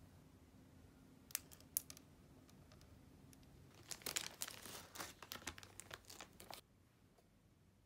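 Two sharp clicks about a second and a half in, then a thin plastic pastry wrapper crinkling and tearing for about two and a half seconds as it is opened and pulled off a cream puff.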